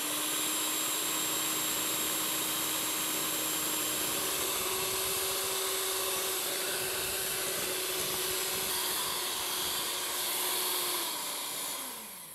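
Electric mixer beating egg yolks, sugar and oil for cake batter: a steady motor whir that steps up slightly in pitch about four seconds in, then winds down and stops near the end.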